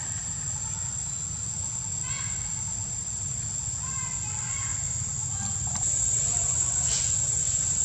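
Steady high-pitched drone of insects shrilling in the trees over a low rumble, with a few faint short chirps; it gets louder about six seconds in.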